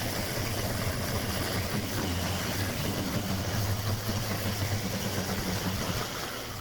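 A machine running steadily, a constant low hum under a wide hiss, fading out just before the end.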